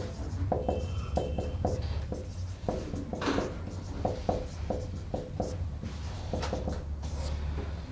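Whiteboard marker squeaking and scratching across the board in many short strokes as words are written by hand.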